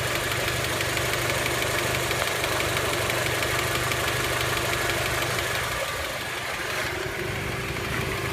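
Honda Element's four-cylinder engine idling at full operating temperature with a light, rapid clicking from the top of the engine, which the owner takes for a valve out of adjustment or a worn camshaft bearing journal rather than a rod or piston knock. The sound gets slightly fainter about six seconds in.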